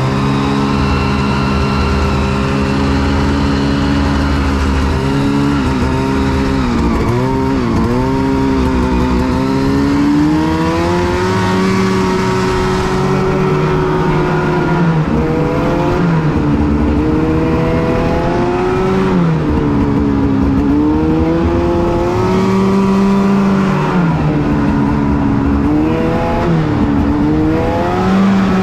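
Arctic Cat Riot 8000 snowmobile's two-stroke 800 twin running down a trail. Its pitch rises and falls again and again as the throttle is worked, with a steadier stretch in the middle.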